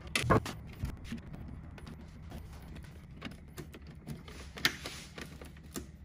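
Pliers snipping bare copper ground wire, a sharp click about a third of a second in, then scattered light clicks and rustles as wires are handled and pressed into the charger's terminal block, over a low steady hum.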